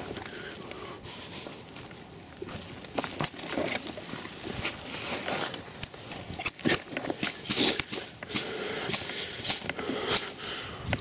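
Irregular rustling and crackling of leaves and undergrowth, with scattered sharp clicks and snaps, busiest about two-thirds of the way through.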